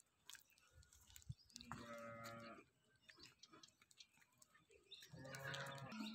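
Two faint, drawn-out animal calls, each about a second long and held on an even pitch, the second about three seconds after the first.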